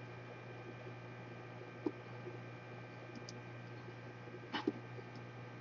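A few light clicks and taps from handling tools and laptop parts, over a low steady electrical hum.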